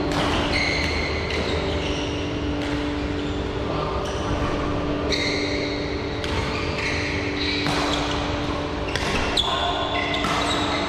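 Badminton rackets striking a shuttlecock at irregular intervals during rallies, with short high squeaks of court shoes on the floor and a steady hum in a large echoing hall.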